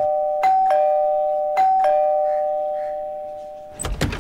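Two-tone doorbell chime sounding ding-dong twice, about a second apart, each time a high note then a lower one, the notes ringing on and slowly fading. Near the end comes a short clatter as the front door is unlatched and opened.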